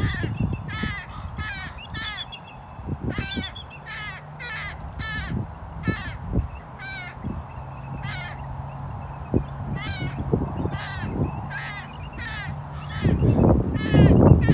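Ravens calling over and over, a long series of short calls about every half second to second. A loud low rumble comes in near the end.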